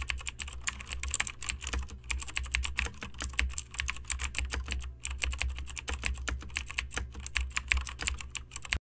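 Rapid, irregular clicking like typing on a computer keyboard, over a low steady hum, cutting off suddenly near the end.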